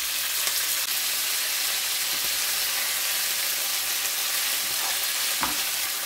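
Bite-sized pieces of pork secreto sizzling steadily as they sear at high heat in olive oil in a frying pan, with a spatula scraping and stirring them, about five seconds in once more distinctly.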